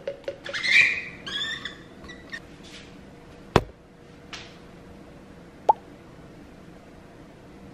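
Brief handling sounds at a kitchen counter over a faint steady hum: a rustling scrape and a short wavering squeak in the first two seconds, then a sharp knock and, a couple of seconds later, a lighter clink with a brief ring.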